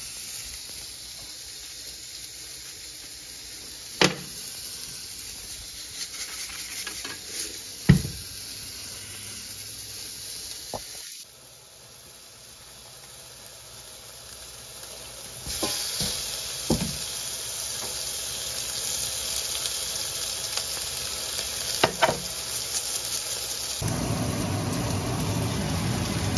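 Chicken frying in a stainless steel skillet: a steady sizzle that grows louder a little past halfway, with a few sharp knocks.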